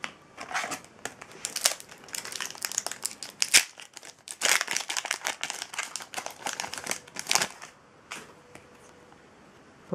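Foil booster pack wrapper being crinkled and torn open by hand, a dense crackle for about seven seconds with a sharp snap about halfway through.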